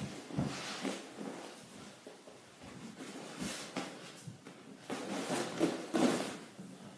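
Soft thumps, bumps and rustling of a child doing a backward roll on the floor, with knocks scattered through and the busiest, loudest movement about five to six seconds in.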